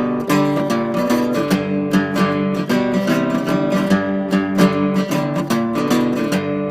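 Background music: strummed acoustic guitar playing chords with a steady rhythm.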